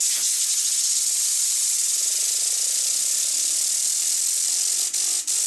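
Compressed air hissing loudly and steadily from an air compressor blow gun aimed at a fidget spinner, with a faint hum from the spinning fidget spinner under it. The air stops for a moment near the end.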